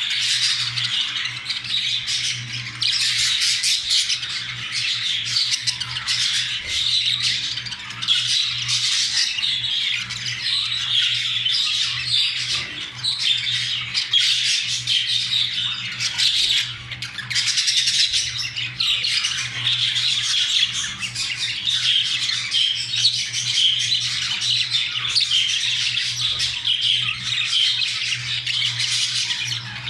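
Budgerigars chattering and warbling non-stop in a dense stream of short squawks and chirps: the courtship and mating chatter of a budgie pair. A steady low hum runs underneath.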